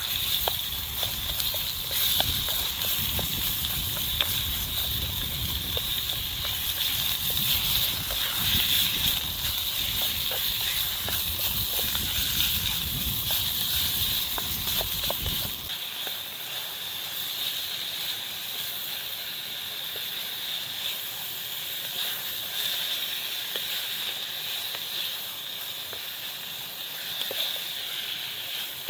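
Chicken, peppers and onion sizzling steadily as they fry in oil, with fine crackling. A low rumble underneath stops suddenly a little past halfway, and the sizzle carries on.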